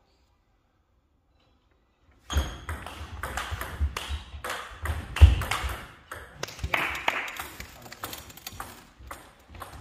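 About two seconds of silence, then a fast table tennis rally: the ball clicks rapidly off bats and table, over low thuds of footwork on a wooden floor. It eases off after a few seconds as the point ends.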